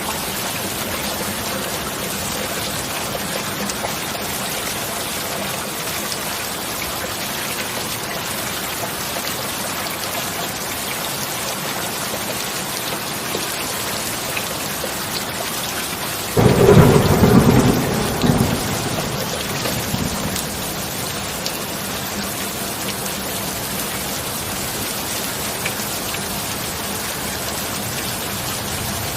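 Steady heavy rain, with a sudden clap of thunder a little past halfway that rumbles and fades away over about three seconds.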